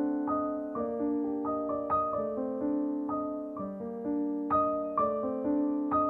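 Background piano music: a gentle, slow melody of single notes over sustained chords.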